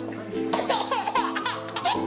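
A baby laughing in short, gliding bursts, over background music.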